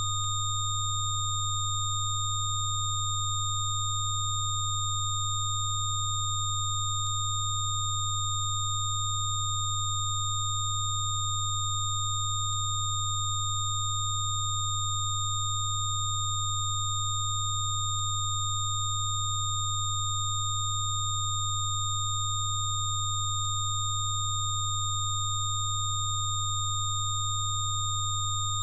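Steady electronic sine tones of a Rife frequency program, held without change: a strong low tone with several thin high-pitched tones above it.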